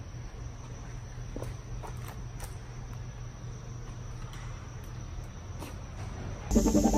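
Steady low room hum with a few faint clicks scattered through it. Near the end, electronic music with a steady beat comes in loudly and becomes the loudest sound.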